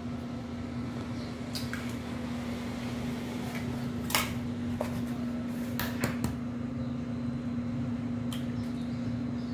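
Eggs cracked open by hand over a plastic bowl: a few sharp taps and cracks of shell, the loudest about four seconds in and a cluster around six seconds, over a steady low hum.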